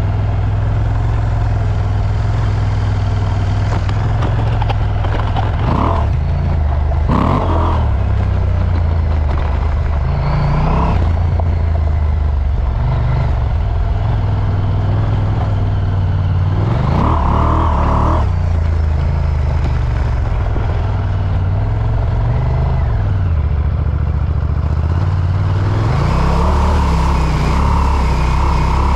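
KTM 790 Adventure R's parallel-twin engine revving up again and again as the motorcycle is ridden hard off road. Near the end it splashes through water.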